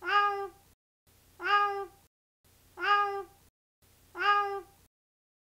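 The same cat meow played four times, identical each time and about a second and a half apart, each cut off into dead silence.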